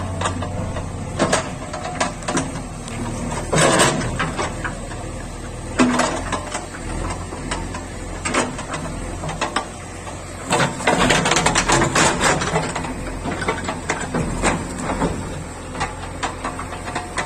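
JCB 3DX backhoe loader's diesel engine running steadily, with repeated knocks and clanks as the backhoe bucket digs and scrapes in the soil. There is a dense run of clatter about halfway through.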